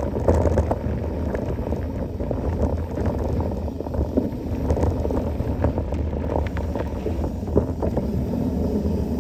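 Mountain bike rolling over a rough trail: a steady rumble from the tyres with many small clicks and rattles from the bike over bumps, and wind buffeting the microphone.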